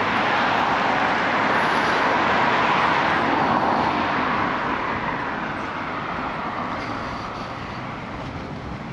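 A car driving past on the road, its tyre and engine noise loudest for the first few seconds and then fading away.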